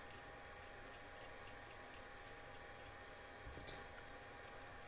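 Faint scattered clicks and ticks of small metal parts being handled: a flat wrench tried against the nozzle of a 3D-printer hot end, with one slightly louder click about three and a half seconds in, over a faint steady hum.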